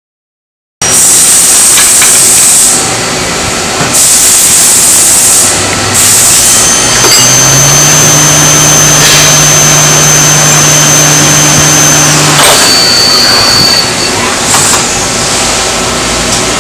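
Mazak SQT-15MSY CNC lathe running a machining cycle. A loud hissing rush cuts in suddenly about a second in and stops and starts several times, with a steady motor hum and a thin high whine through the middle.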